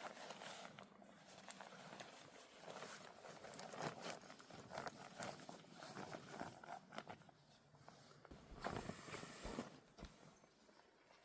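Quiet, irregular rustling and clicking handling noises, with a brief louder rush of hiss about nine seconds in.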